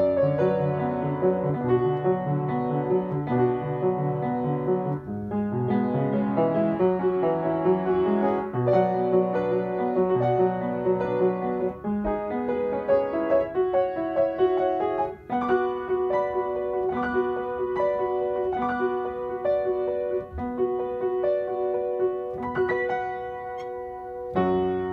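Upright piano played solo: a continuous run of fast notes and chords, with louder struck chords near the end.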